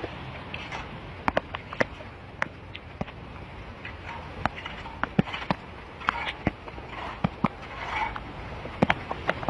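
Irregular sharp taps and knocks, a few a second, over a steady rushing hiss.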